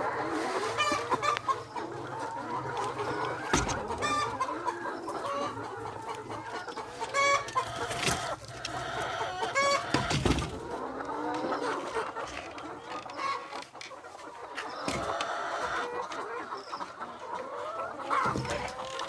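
A flock of egg-laying hens clucking in their poultry house, many overlapping calls throughout. A few sharp knocks sound about three and a half, eight and ten seconds in.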